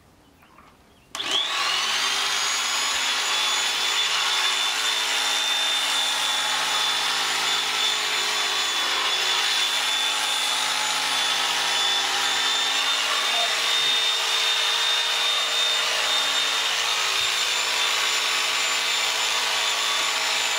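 Electric sheep-shearing clippers switched on about a second in, spinning up and then running steadily with a high whine.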